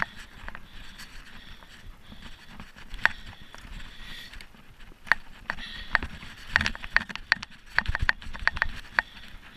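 Mountain bike ridden over a rough dirt trail: tyres rolling on dirt, with the bike clicking and rattling sharply over bumps. The knocks come much more often in the second half as the bike speeds up.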